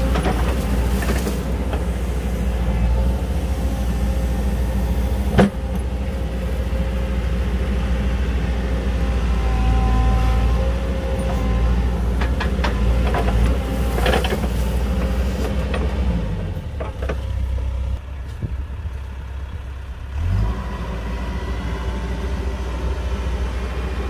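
Diesel engine of a DISD SD300N wheel loader running steadily, with a single sharp knock about five seconds in. The engine note drops lower for a few seconds, then briefly rises again about twenty seconds in.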